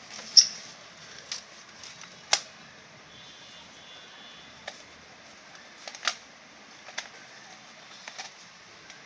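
Scattered sharp clicks and taps from toy-car packaging being handled: small plastic retaining clips and the cardboard box insert. About seven clicks spread irregularly, the loudest about half a second in.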